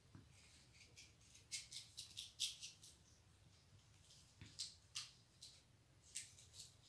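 Faint, irregular dry ticks and rustles of a metal crochet hook catching and pulling white wool yarn through stitches, in a bunch about a second and a half in and again scattered near the end, over near-silent room tone.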